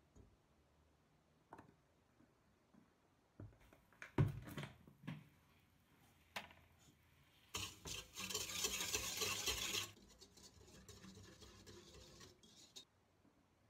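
Utensils and a measuring cup knocking and clinking against a stainless steel mixing bowl, then a hissing, rushing noise of about two seconds, followed by softer scraping as the dough mixture is stirred by hand in the bowl.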